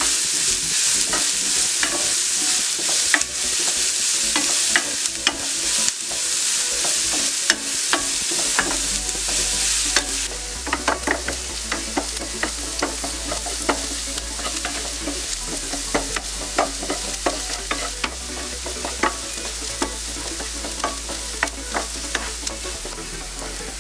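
Chopped onions, coconut bits, ginger and garlic sautéing in oil in a nonstick frying pan, sizzling while a wooden spatula stirs and scrapes them. The sizzle is louder for the first ten seconds or so, then quieter, with frequent short spatula scrapes and taps. The onions are being stirred until they brown.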